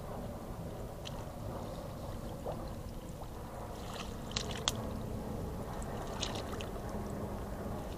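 Water splashing and sloshing in short bursts, with two sharp clicks about four and a half seconds in, over a steady low rumble.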